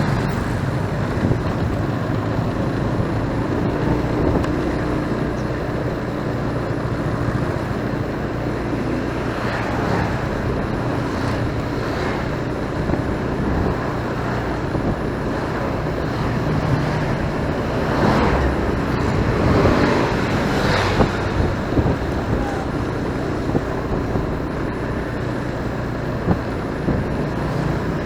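Riding a motorcycle in city traffic: the bike's engine running steadily under road and wind noise on the microphone, with a few louder swells as traffic passes, around ten seconds in and again near twenty seconds.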